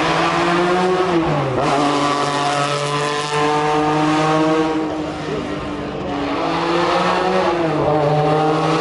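Racing car engine running hard at high, steady revs, its pitch dipping about a second in and again near the end, as on a gear change.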